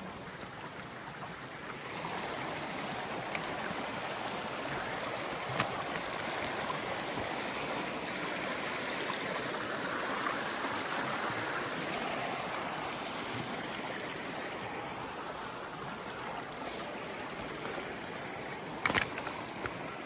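Small forest creek babbling over rocks and logs, swelling to its loudest about halfway through and then easing off. A few sharp snaps cut through it, the loudest near the end.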